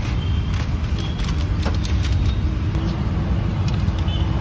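Aluminium foil takeaway trays and banana leaf being handled, giving short crackles and clicks several times, over a loud steady low rumble.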